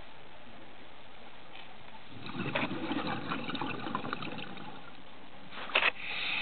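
Underwater: a crackling burst of scuba exhaust bubbles about two seconds in, then two sharp knocks close to the camera and more bubbling near the end.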